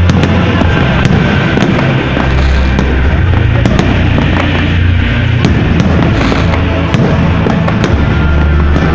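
Aerial fireworks bursting overhead, with sharp cracks and bangs at irregular intervals, over loud music with a heavy bass line.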